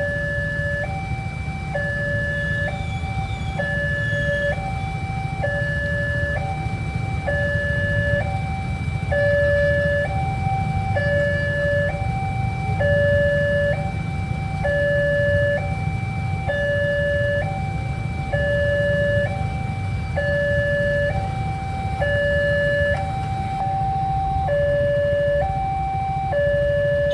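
Railway level-crossing warning alarm sounding continuously: a two-tone electronic siren switching between a lower and a higher pitch about once a second, the warning that the gate barrier is closing for a train. A steady low rumble runs underneath.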